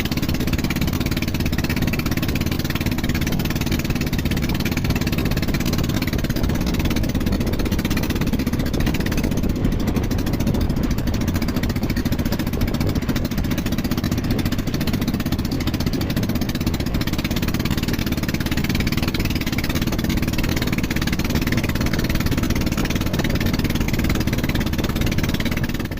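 An engine running steadily at a low, even speed.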